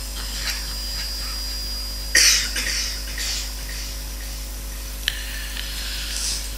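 Steady hum of a public-address microphone during a pause in live Quran recitation. A short, sharp noisy sound comes about two seconds in, with a few fainter ones around it.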